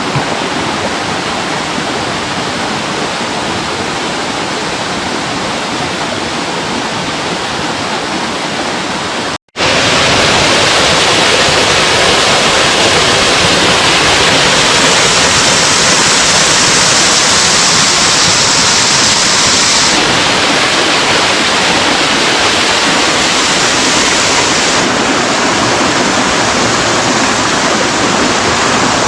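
Mountain stream water rushing over rocks: a steady, loud wash of water noise. About nine seconds in it drops out at a cut and comes back louder.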